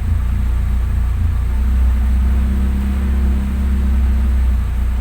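BMW E36 316i's 1.6-litre four-cylinder engine idling steadily, with its idle control valve freshly cleaned; the idle note shifts slightly about a second and a half in.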